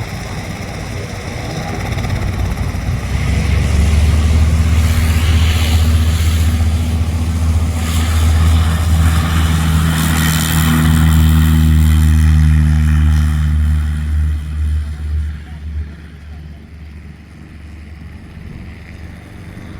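Propeller airplane's piston engine building up, running loud and steady for about ten seconds, then fading away.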